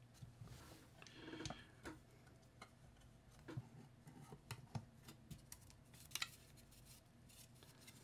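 Faint, scattered clicks and taps of 3D-printed plastic pattern halves being pressed together on their alignment dowel pins and handled on a workbench.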